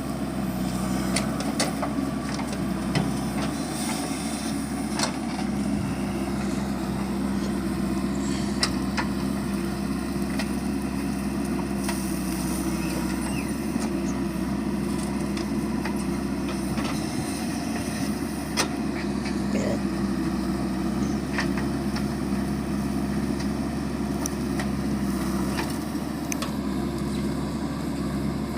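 Diesel engine of a JCB 3DX backhoe loader running at a steady speed, with scattered sharp knocks.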